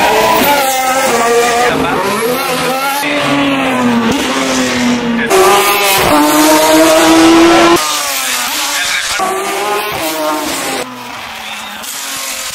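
Single-seater racing car engines at high revs, heard up close. The pitch sinks over the first few seconds. Then a louder car holds a rising note until it cuts off abruptly about eight seconds in, followed by quieter engine sound.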